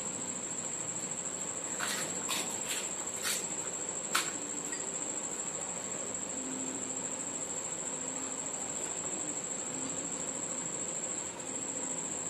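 Crisp fuchka (panipuri) shells cracking as they are poked open for filling: five sharp cracks in quick succession about two seconds in, the last the loudest. A steady high-pitched tone runs underneath throughout.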